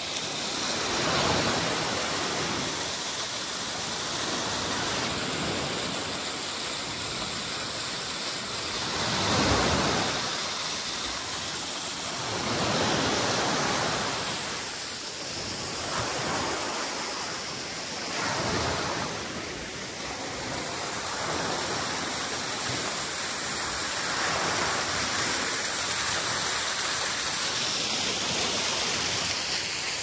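Small Lake Superior waves washing onto a sandy beach, a steady rush of water that swells and eases every few seconds.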